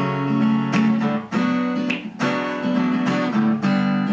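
Epiphone acoustic guitar strummed in a steady rhythm, with the chord changing every second or so.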